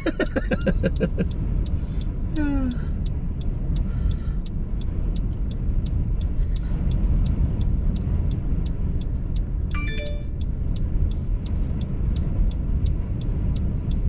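Strong wind buffeting a stopped car, a steady low rumble, with an even ticking about three times a second. A passing car's horn falls in pitch about two seconds in.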